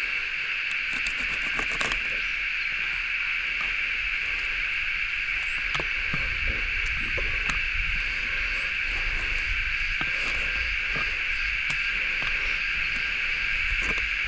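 A steady, shrill chorus of insects, a dense high drone that holds level. Underneath are scattered faint clicks and taps from a filleting knife working perch fillets on a wooden chopping board.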